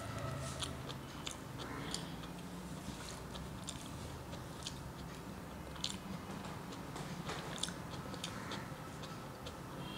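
Close-up mouth sounds of a person eating: chewing with wet lip smacks and sharp clicks scattered throughout, along with the sucking of food off the fingers.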